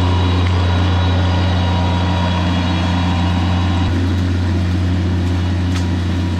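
Engine running steadily at a constant speed, a loud, even low drone; its upper tones ease slightly about four seconds in.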